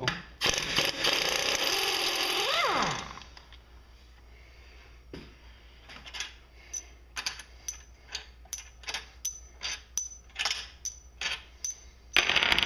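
A power drill runs a socket on the cylinder head bolts of a Briggs & Stratton mower engine for about two and a half seconds, its motor whine winding down as it stops. Then come a string of light metal clicks and taps as the loosened bolts are handled and pulled out, and another short burst of the drill near the end.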